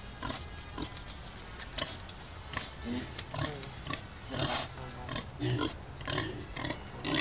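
Domestic pig grunting in short bursts, about two a second.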